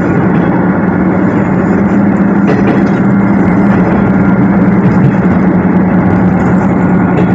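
Diesel engine of the Tarumi Railway Hi-Mo 330-702 railbus running steadily under way, heard from inside the car: a loud, even drone with a steady low hum and running noise.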